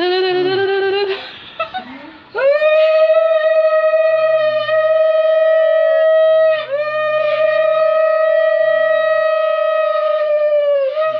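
Conch shell (shankha) blown in long steady blasts, each starting with a short upward scoop: one of about four seconds, a brief break, a second of about four seconds, and a third beginning at the end. A short wavering vocal call comes just before the first blast.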